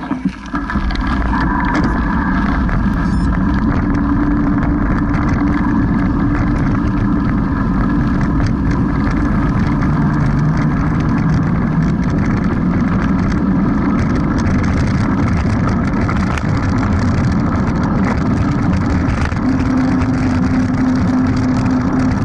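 A mountain bike rolling fast down a dirt road, heard from a bike-mounted action camera. It makes a steady loud rumble of wind on the camera's microphone and tyres on loose dirt, starting about half a second in as the bike gets going.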